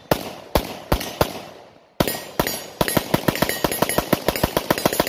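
AK-74 rifle in 5.45x39mm firing, each shot with a ringing echo. Four shots come in the first second or so, then a short pause, then a fast string of about six shots a second.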